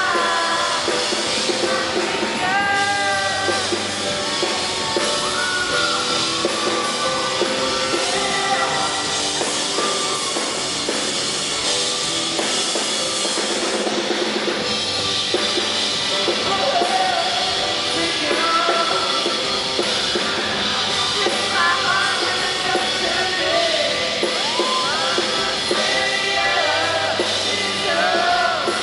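Live pop-rock band playing with sung lead vocals over a drum kit, steady and loud.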